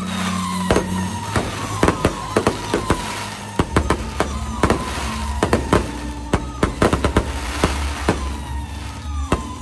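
Fireworks going off in a rapid string of sharp bangs and cracks, several a second, with a long tone sliding slowly down in pitch underneath. Music with a steady bass plays along and swells about a third of the way in.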